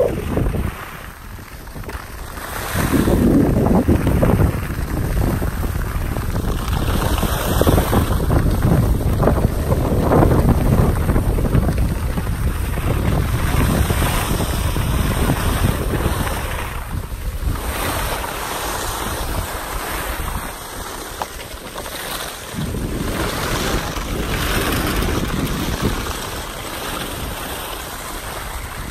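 Wind buffeting the microphone while skiing downhill, with the hiss and scrape of skis sliding over groomed snow. The level swells and dips, dropping for a moment about a second in and again around seventeen and twenty-two seconds in.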